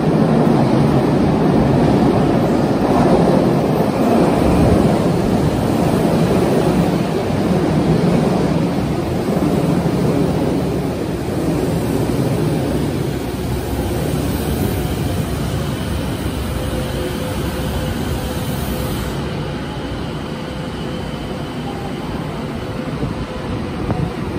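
Kobe Municipal Subway train pulling into an underground platform and slowing to a stop, its running noise loudest in the first ten seconds and easing off as it slows. A faint steady whine shows in the second half.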